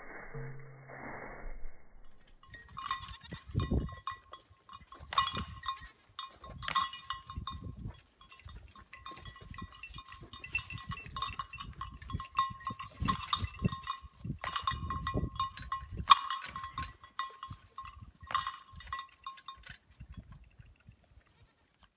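A bell on a goat's collar clanking over and over as the goats move about, its ringing note sounding again with each stroke, with dull low thumps in between.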